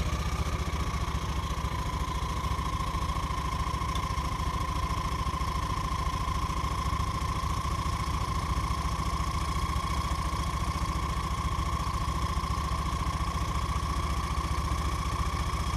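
Motorcycle engine idling steadily, a fast even beat with a steady whine over it.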